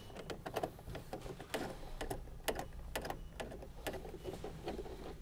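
Hand ratchet with a 10 mm socket clicking as it runs in a headlight mounting screw, a string of light, irregular clicks a few per second.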